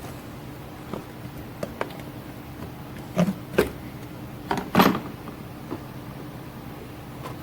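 Engine parts and hand tools being handled during removal of the rocker cover: a few light clicks, then four louder knocks and clanks about halfway through, over a steady low hum.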